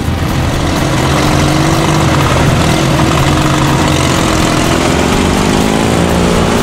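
Several riding lawn tractor engines running together, a loud steady drone whose pitch wavers slightly as the throttles move.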